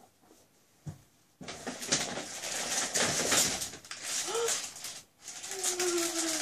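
Crisp plastic wrapping crinkling and rustling as it is handled and pulled open, starting about a second and a half in after a soft knock. Near the end comes a person's short rising 'ooh', then a longer falling one.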